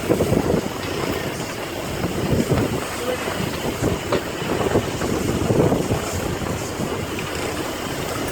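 Steady boat engine and water noise, with wind buffeting the microphone.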